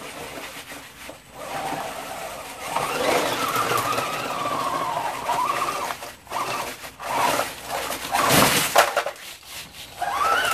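The electric drive motor and plastic tracks of a 3D-printed RC snowcat whining as it crawls under a heavy load of bottled water, the whine gliding up and down in pitch. About eight seconds in the load topples over with a loud crash and knocks as the water packs hit the concrete floor.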